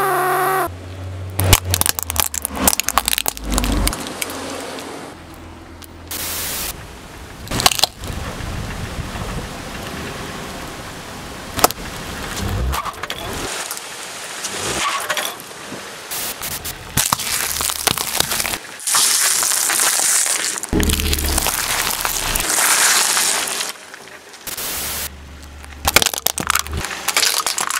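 Car tyre slowly rolling onto small objects on concrete and crushing them: a run of sharp cracks, snaps and crackling, with stretches of hiss between, changing abruptly every few seconds.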